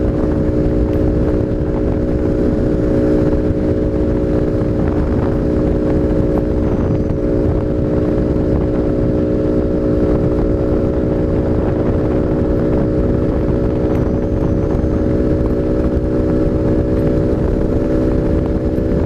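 Honda Biz 125's single-cylinder four-stroke engine, breathing through a sports air filter, running hard at steady high revs at about 105 km/h, with wind noise on the microphone from the speed.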